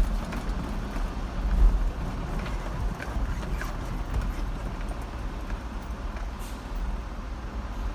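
A car driving along a road: a steady low rumble of engine and tyre noise, with a few faint ticks.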